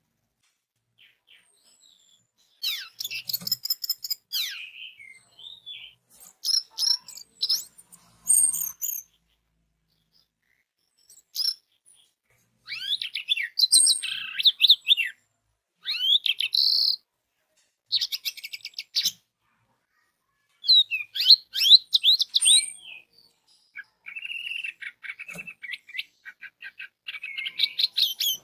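Orange-headed thrush singing: a series of short phrases of rapid, varied whistled and chattering notes, each lasting one to three seconds, separated by silent gaps.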